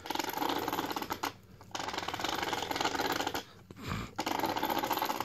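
Losi 8ight RC buggy run in three short bursts of throttle, its motor and drivetrain giving a fast, even rattling whir, with a low thump about four seconds in.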